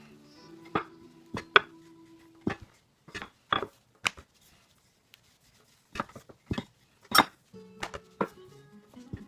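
Scattered sharp knocks and clacks of kitchen tools on a work surface, about fifteen at uneven spacing, over soft background music that drops out in the middle.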